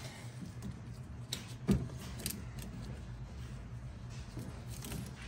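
Plastic wiring harness connectors inside a car door being handled and pushed together: a handful of sharp plastic clicks and light rattling, the loudest click a little under two seconds in.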